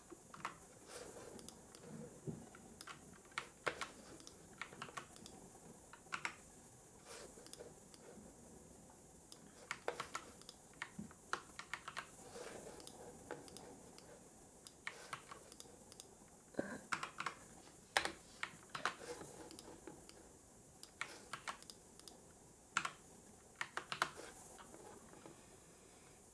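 Typing on a computer keyboard: irregular key clicks, singly and in quick runs with short pauses between, over a faint steady hiss.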